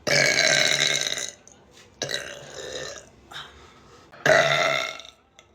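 A woman burping three times: a long loud burp at the start, a shorter, quieter one about two seconds in, and another loud burp near the end.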